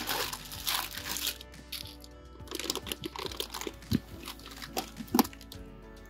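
Plastic grocery packaging crinkling and rustling in two bursts as it is handled, with a couple of sharp knocks near the end, over soft background music.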